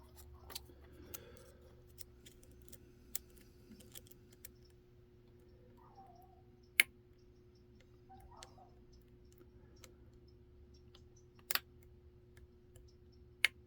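Lock pick and tension wrench working the pins of a Kaba cylinder fitted with serrated and spool security pins: scattered faint clicks and scrapes, with three sharper clicks, the last just before the end.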